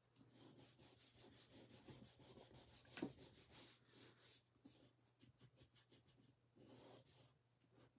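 Faint rubbing of fingers and palms smoothing glued paper panels flat onto a card, in quick repeated strokes that thin out after about four seconds, with one soft tap about three seconds in.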